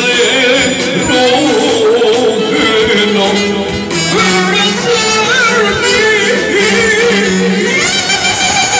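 Male singer performing an Albanian folk song live through a microphone over amplified band accompaniment. The voice holds long notes that waver with ornamented vibrato.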